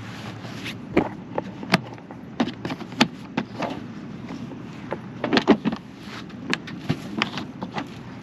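A portable gas camp stove and its hard plastic carrying case being opened and handled on a car roof: a string of irregular clicks and clunks, loudest in a quick cluster a little past halfway.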